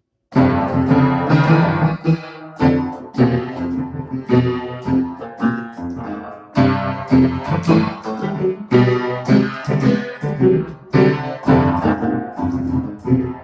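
Keyboard played by hand: a run of struck chords and single notes, each decaying before the next, starting just after a moment of silence.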